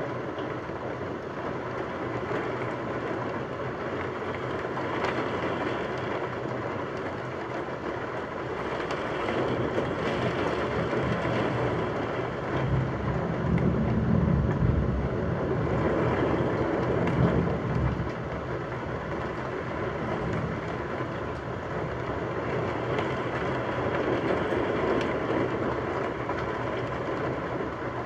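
Steady rain falling, with a long low roll of thunder that swells about halfway through and dies away several seconds later.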